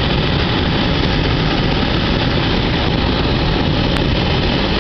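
Hot air balloon's propane burner firing in a long, steady blast.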